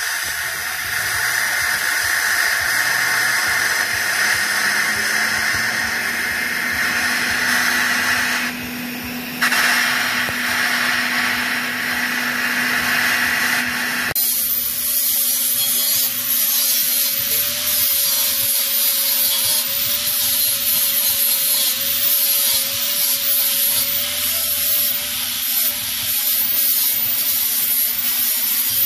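TIG welding on stainless exhaust tubing: a steady arc hiss that breaks off briefly about a third of the way in. About halfway through it gives way to a handheld grinder with a sanding disc polishing the stainless pipe, a steady high whine over a bright hiss.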